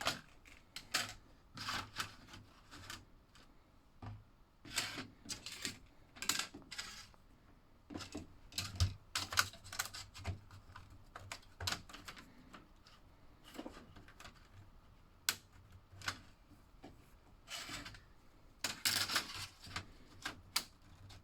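Plastic Tyco slot car track sections clicking, knocking and rattling as they are handled and pushed together, in irregular clusters of small clicks, with a louder flurry near the end.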